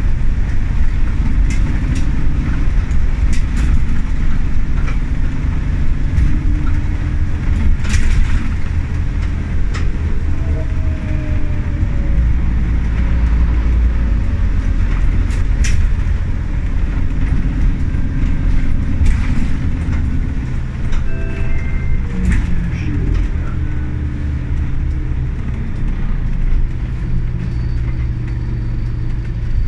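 Inside a 2010 Scania OmniCity city bus on the move: its 9.3-litre Scania DC9 diesel engine running under load with a deep rumble, the engine note stepping up and down. Occasional sharp knocks come through over the rumble.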